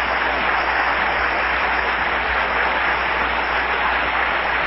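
Live audience applauding steadily, over a low steady hum.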